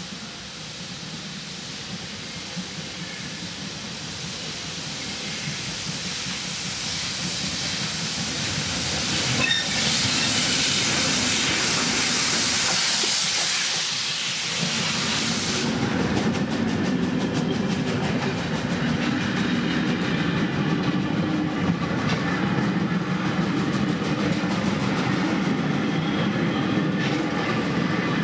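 Steam train approaching and passing close by: the sound builds, then the locomotive goes by in a loud hiss of steam about ten seconds in. After that come the rumble and clatter of its wagons and coaches rolling over the level crossing.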